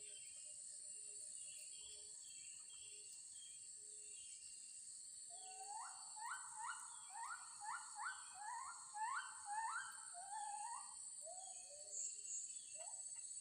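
A bird calling a run of about ten rising whistled notes, roughly two a second, starting about five seconds in, with a few scattered calls after, over a steady high drone of insects.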